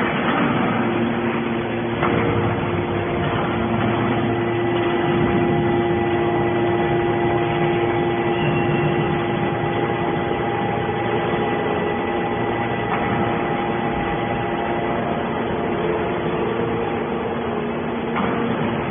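Hydraulic scrap metal baler running: a steady machine hum with several steady whining tones over it, typical of an electric motor driving a hydraulic pump.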